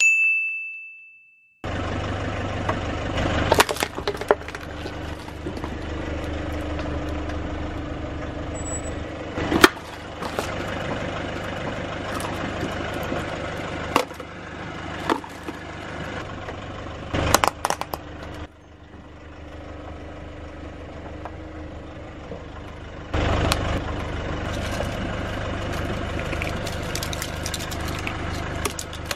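A short ding at the start, then a car engine idling steadily, with several sharp plastic clicks and cracks as toys and straws are handled and crushed under the tyre. The loudest crack comes about ten seconds in.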